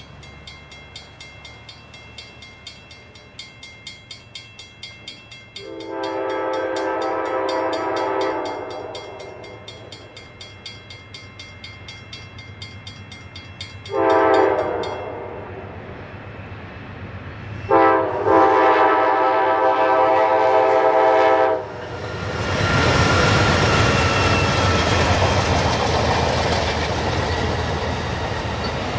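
Amtrak P42 diesel locomotive horn sounding a long blast, a short one and another long one, over a bell ringing rapidly that stops about halfway through. From about 22 seconds the passenger train rushes past close by, its wheels rumbling and clattering on the rails.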